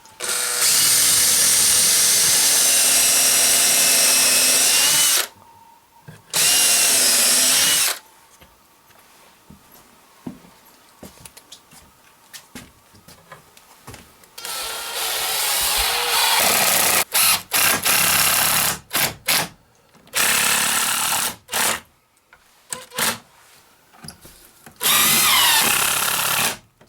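Power drill driving screws into a wooden window frame: two long runs early on, then a string of short trigger bursts and a final run near the end, the motor's pitch dropping as each run stops.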